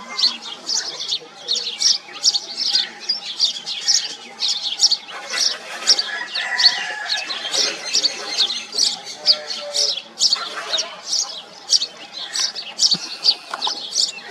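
House sparrows chirping: a steady run of short, high chirps, about three or four a second.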